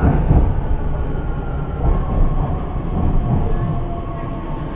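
Shanghai Metro 07A02-type electric train running into a station, heard from inside the carriage: a steady rumble of wheels on rail with a faint hum of tones from the running gear. One of these tones sinks slightly in pitch about three seconds in as the train slows to stop.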